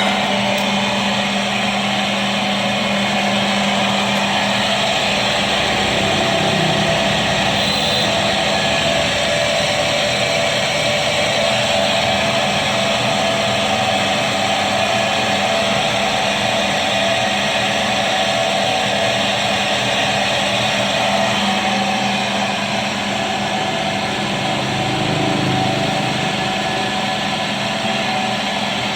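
Automatic stone-drilling machine running steadily: a constant motor hum under a dense, even rushing noise.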